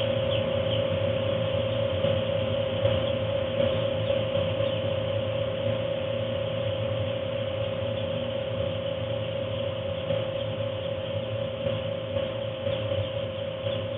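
Forced-air heater blowing warm air through the house duct, a steady mechanical hum with a constant tone. Faint peeping of two-day-old Ross 308 broiler chicks now and then, mostly at the start and near the end.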